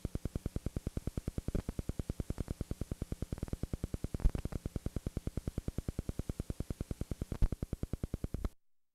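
Rapid, even pulsing noise at about eight pulses a second, typical of interference on a video tape's audio track once the recording has ended and the picture has gone black. Two louder knocks stand out, about four and seven and a half seconds in, and the pulsing cuts off abruptly near the end.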